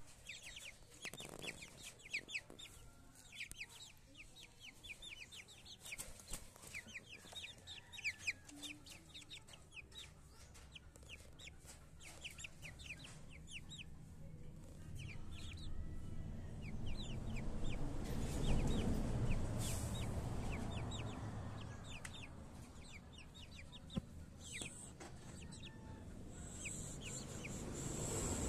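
Young chickens in a cage peeping over and over in short, high calls, several every second. Midway a louder rushing noise swells up and fades away under the calls.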